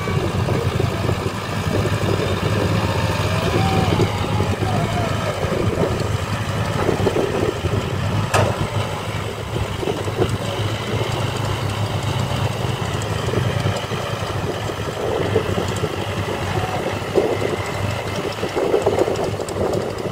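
Diesel engines of a crawler bulldozer, a dump truck and a CAT 320 excavator running together as a steady low rumble, with one sharp clank about eight seconds in.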